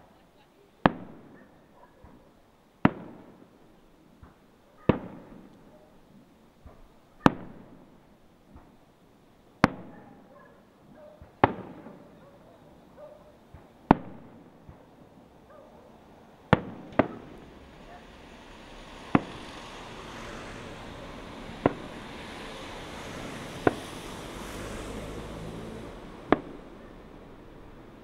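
Fireworks display: aerial shells bursting one at a time with sharp bangs about every two seconds, each dying away over a second or so. In the second half a steady hiss builds up behind the bangs.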